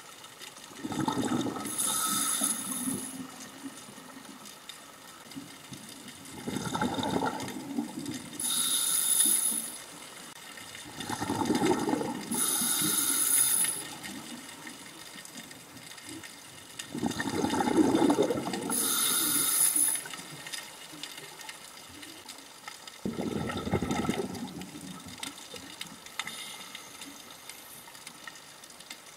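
A scuba diver breathing through the regulator: a low bubbling rumble of exhaled bubbles and a high hiss from the demand valve, repeating about five times, one breath every five to six seconds.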